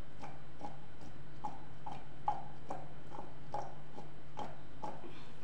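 Batter-coated potato pieces knocking against a stainless-steel bowl as it is shaken and tossed: rhythmic knocks with a short metallic ring, about two or three a second, the loudest a little over two seconds in. A steady low hum runs underneath.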